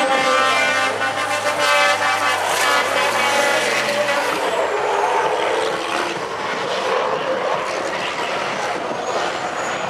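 MAN race truck's diesel engine held at high revs while its rear tyres spin in a smoky burnout. The steady engine note dominates for about four seconds, then gives way to a rougher rush of tyre and engine noise.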